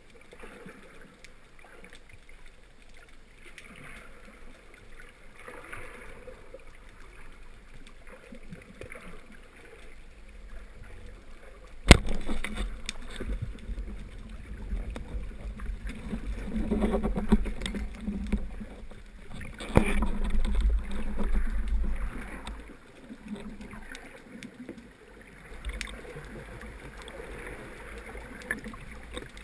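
Band-powered wooden speargun fired underwater about twelve seconds in: one sharp crack, the loudest sound. Around it, a low underwater rushing and rumbling, heavier for several seconds after the shot.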